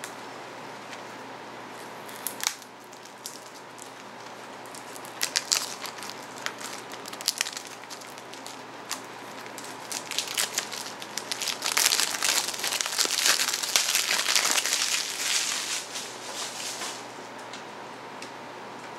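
Crinkling and tearing of thin plastic wrap being worked off a CD case, with a few sharp clicks of the case being handled. The crinkling is densest from about ten to seventeen seconds in.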